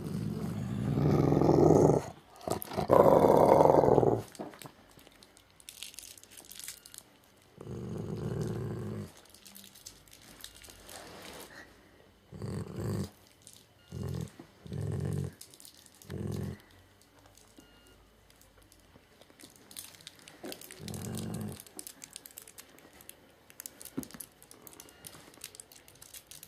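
Black Labrador growling protectively over a kitten, in bouts: two long growls at the start, then about six shorter growls spread through the rest.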